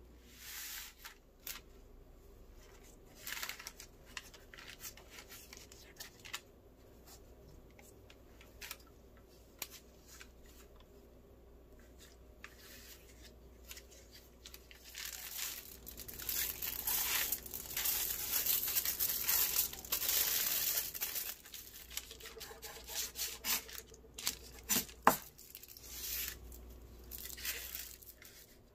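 Handling noises: intermittent tearing and crinkling, with a longer stretch of it past the middle and a sharp click near the end.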